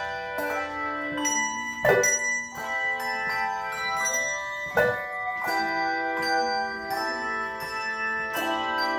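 Handbell choir playing a piece: many bells ringing in overlapping, sustained notes that change chord by chord, with two louder strikes about two and five seconds in.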